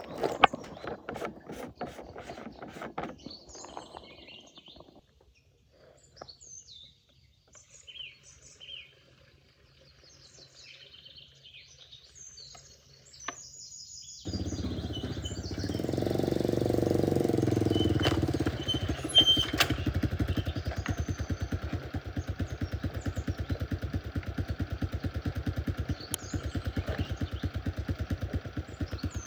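Knocks and clatter, then birds chirping. About halfway through, a motorcycle engine starts abruptly, swells briefly and then runs steadily with an even pulse.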